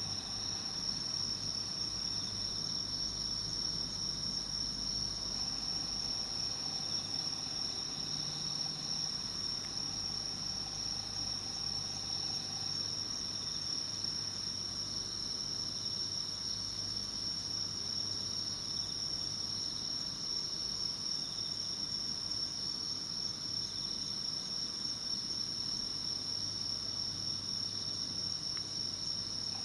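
A steady, high-pitched chorus of night insects chirring without a break, over a faint low hum.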